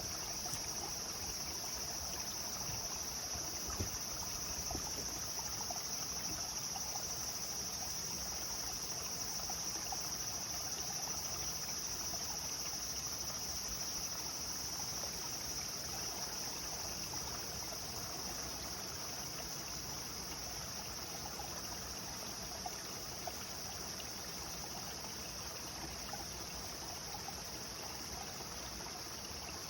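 A clear stream flowing and trickling steadily, with an unbroken high-pitched drone of insects over it.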